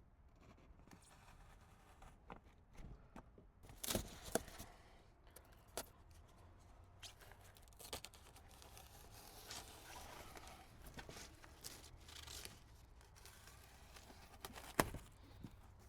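Reflective foil tape being pulled off its roll and pressed onto foam insulation board: stretches of rasping, tearing noise broken by a few sharp knocks and taps, the loudest knock near the end.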